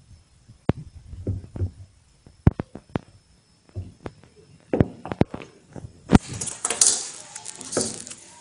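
Irregular sharp clicks and taps of steel pliers against metal soda bottle caps as the caps are gripped and bent. About six seconds in, a scratchy rustling of handling takes over for a couple of seconds.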